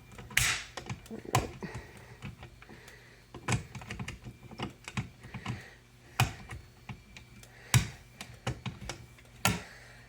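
Irregular clicks and taps of hands working fire alarm equipment, such as control panel buttons or a pull station, with a few sharper knocks, over a faint steady low hum.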